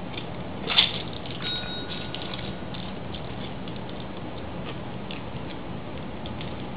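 Steady background hiss with scattered faint clicks and one sharper tap about a second in; a faint thin ringing tone follows briefly.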